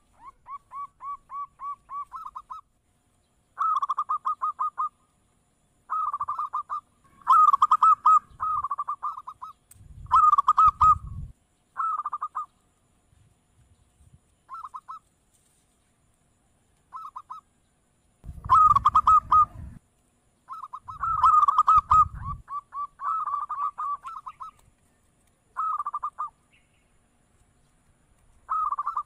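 Zebra doves (perkutut) cooing: a dozen or so phrases of quick, rhythmic staccato notes, separated by short pauses. A low rumble sits under a few of the loudest phrases.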